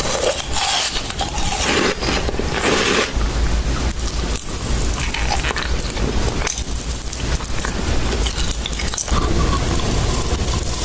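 Close-up crunching and chewing of Kinder Bueno wafer bars, a dense run of crackly bites and crunches.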